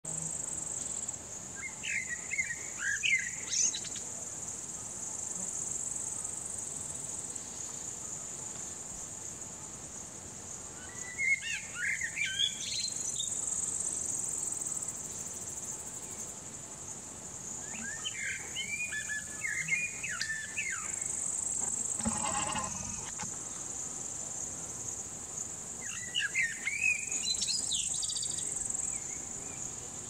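Male Eurasian blackbird singing: four short warbling phrases several seconds apart, over a steady high-pitched insect buzz.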